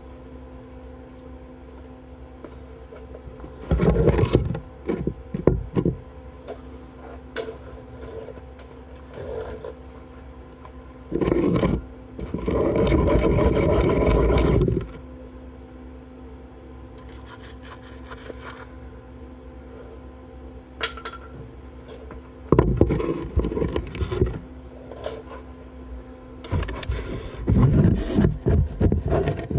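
Welding: a welder humming steadily, with repeated bursts of crackling arc. The longest burst lasts about three seconds in the middle, and shorter crackling bursts come in clusters before and after it.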